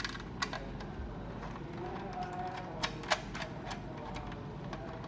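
Screwdriver taking out the single case screw of a mini PC: scattered small metallic clicks and ticks, with a few sharper ones about three seconds in.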